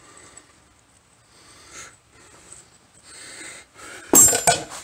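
Faint breathing and small handling noises while working under a car's front suspension, then a loud, sudden clatter about four seconds in as tools and parts are handled.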